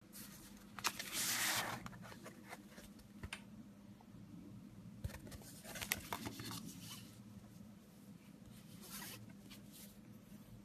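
Clear plastic packaging rustling and crinkling as foam squishies in their bags and on their cardboard cards are handled, with a few light clicks and taps. The loudest rustle comes about a second in, with shorter ones around the middle and near the end.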